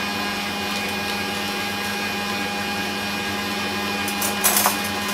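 Electric stand mixer running at a steady speed, creaming butter, sugar and egg yolks into a cake batter: a constant, even motor hum. A few short scratchy sounds near the end.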